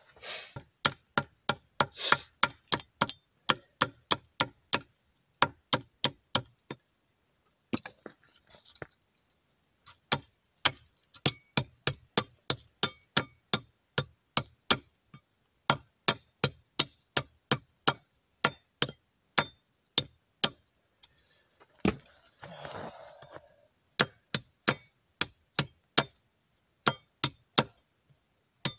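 A long run of sharp, evenly spaced taps with a faint metallic ring, about three a second, with two short pauses filled by a soft rustle.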